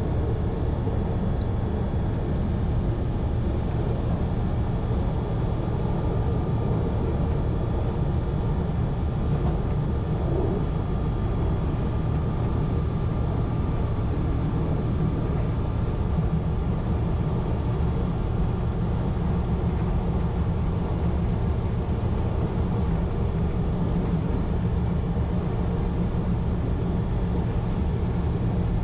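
A 1920s CPH railmotor running between stations, heard from the driver's cab: the engine and the wheels on the track make a steady low drone with a faint steady whine above it.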